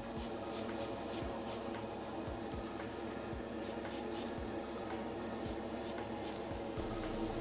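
Short, irregular hissing bursts from a spray can of primer being applied in quick passes, over background music.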